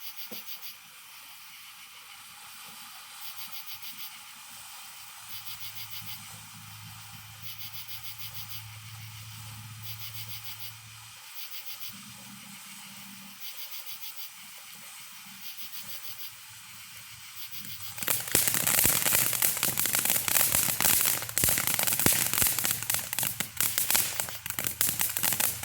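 Ground firework fountain hissing steadily as it sprays sparks, then about 18 seconds in breaking into a loud, dense crackling that keeps going.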